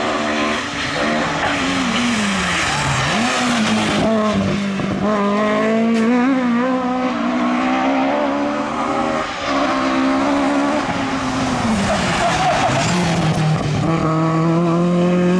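Ford Escort rally car engine revving hard, its pitch rising and falling repeatedly through gear changes and throttle lifts, with a sharp dip about three seconds in, as the rear-wheel-drive car is driven sideways.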